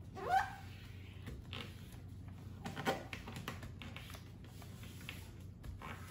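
Sheets of paper being folded and creased by hand on a tabletop: scattered soft rustles, rubs and scrapes as fingers press down the folds. A short squeak about a third of a second in is the loudest sound.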